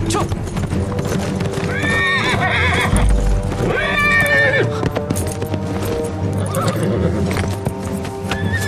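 Horse hooves clip-clopping while a horse whinnies twice, about two seconds and four seconds in, over background music.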